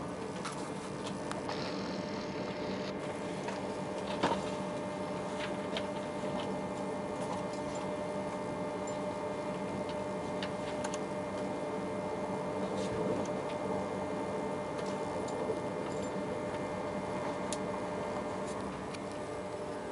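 Inside a TGV high-speed train carriage as it gathers speed: a steady running hum with several held tones, dotted with scattered sharp clicks and ticks, the loudest about four seconds in.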